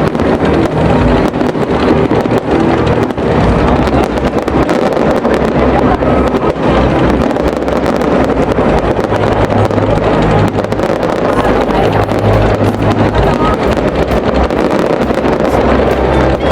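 Fireworks display: a continuous barrage of bangs and crackles over a low rumble, loud throughout.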